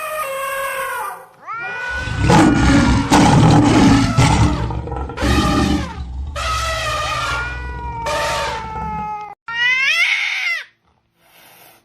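Recorded animal sound effects: a cat meowing, then a long loud stretch of roaring with a deep rumble under it, then another short meow about ten seconds in.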